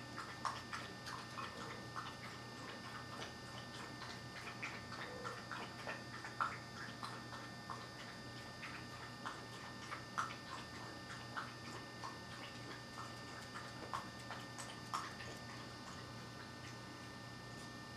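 Dachshund puppies eating from a plastic food bowl and stepping on a hardwood floor: irregular light clicks and ticks, over a faint steady hum.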